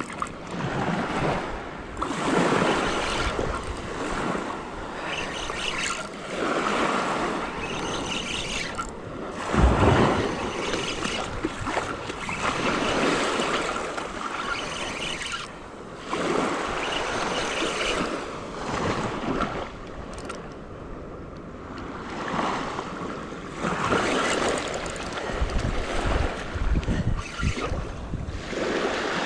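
Small waves washing onto a sandy shore, each wash swelling and fading every few seconds, with wind gusting on the microphone now and then.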